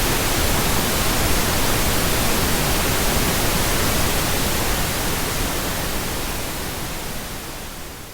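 Steady electronically generated pink noise, an even hiss with no tones or events. It fades out gradually over the last few seconds.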